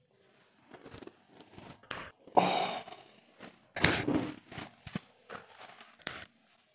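A patient's loud sighs and strained breaths during frozen-shoulder manipulation, with a few short knocks of body and couch being handled.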